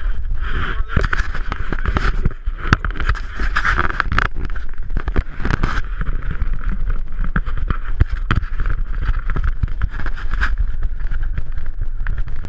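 Inflatable snow tube sliding and scraping down a packed-snow run, with wind buffeting an action camera's microphone as a steady low rumble and frequent sharp knocks as the tube bumps along.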